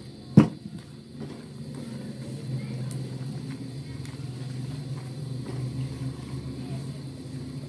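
Flour being stirred into hot ghee in a wok with a spatula: faint scraping and small clicks over a steady low hum, after one sharp knock about half a second in.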